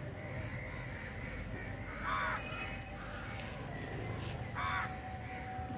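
A crow cawing twice, about two and a half seconds apart, over a faint steady low rumble.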